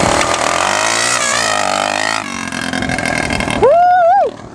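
Yamaha Timberwolf 250 ATV's single-cylinder four-stroke engine running through a homemade straight-pipe exhaust with a chrome tip, revving up and down as the quad rides by, with a loud tone that rises and falls near the end. Its raspy edge comes from an exhaust leak where the pipe joins the stock header.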